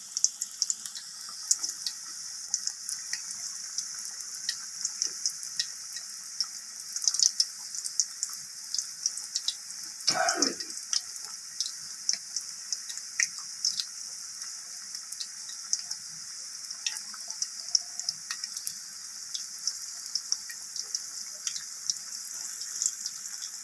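Pakora batter deep-frying in hot oil in an aluminium karahi: a steady sizzling hiss with many small crackles and pops as more portions are dropped into the oil by hand.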